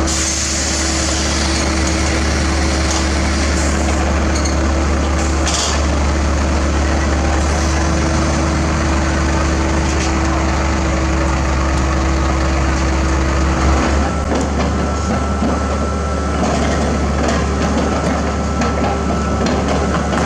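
Heavy diesel machinery running steadily, with a deep drone and a steady hum that gives way to a higher whine about two-thirds of the way through.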